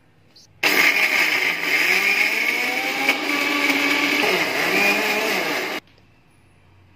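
Electric mixer grinder with a stainless steel jar running for about five seconds, wet-grinding soaked almonds, pistachios, rice and poppy seeds into a smooth paste. It starts suddenly about half a second in, its pitch wavers while it runs, and it cuts off sharply near the end.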